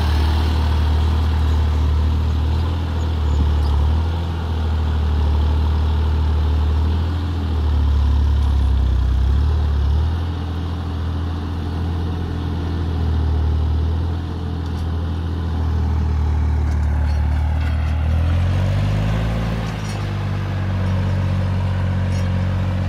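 Massey Ferguson 9500 tractor's diesel engine running steadily under load as it pulls a tiller through the soil. The engine note rises briefly near the end, then holds at a slightly higher pitch.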